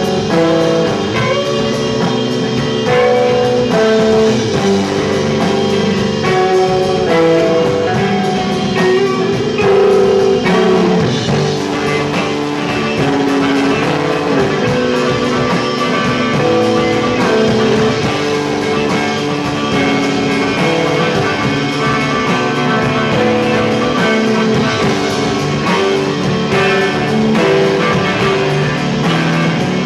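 Live instrumental rock from a three-piece band: electric guitar, bass guitar and drum kit playing together.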